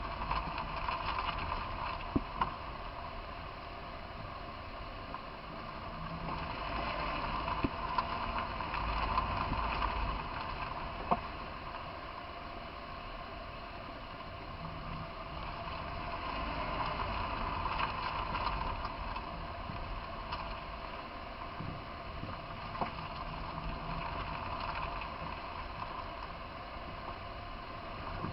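Steady running noise that swells and fades slowly, broken by single sharp pops a few seconds apart.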